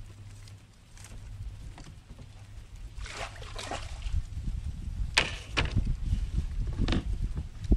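Sharp knocks and thumps on a small wooden boat as fishing gear is handled, with a splash of water about three seconds in, over a low rumble.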